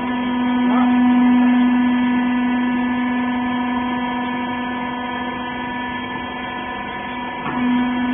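Hydraulic rag baler's power unit running with a steady electric hum, swelling about a second in and again near the end.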